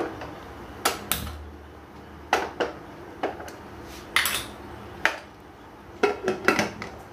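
Metal pressure cooker lid being handled and fitted onto the cooker: a run of sharp metal clinks and knocks, some in quick pairs, the last cluster coming as the lid goes on near the end.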